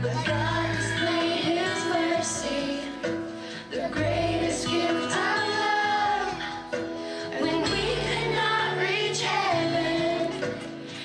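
A girl singing a song into a microphone, over instrumental accompaniment with steady held low notes that change every second or two.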